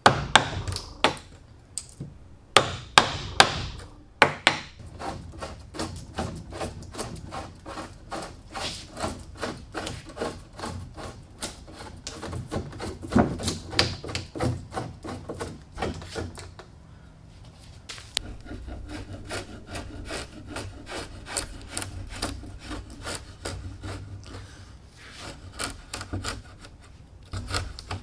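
Hand tools working wood: a few sharp strikes in the first seconds, then a long run of quick rubbing or sawing strokes on wood, several to the second.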